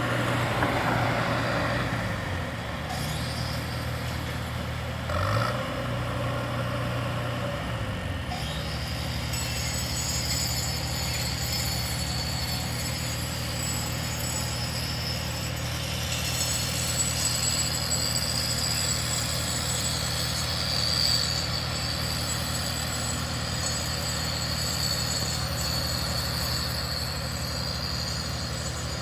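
A motor vehicle's engine idling steadily, a constant low hum with a faint steady high hiss above it.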